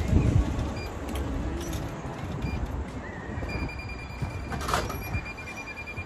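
Low rumbling noise of wind and traffic around a delivery rider on the road, with a steady high electronic tone starting about halfway through and a brief squeak near the end.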